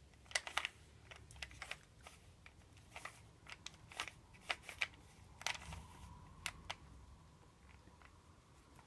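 Plastic Rubik's Cube layers being turned by hand: a string of faint, irregular clicks and clacks that thin out near the end.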